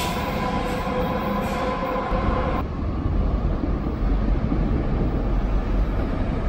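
SBB double-deck electric S-Bahn train running with a steady whine over rail noise, cut off abruptly a little over two seconds in. Then a deep rumble of a train approaching through the station tunnel, growing stronger toward the end.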